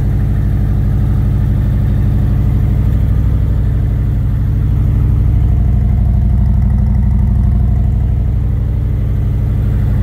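Harley-Davidson Milwaukee-Eight V-twin idling steadily with an even, pulsing beat, a little louder about halfway through. It is running on freshly fitted spark plugs, put in to cure a misfire that showed up at warm-up.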